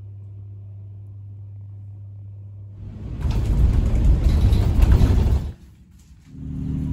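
A steady low hum, then a loud low rumble of a moving vehicle from about three seconds in that cuts off abruptly some two and a half seconds later; another steady low hum starts near the end.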